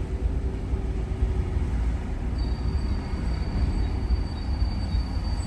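Steady low rumble of a car driving, heard from inside the cabin: road and engine noise. A faint, thin high whine comes in about two seconds in.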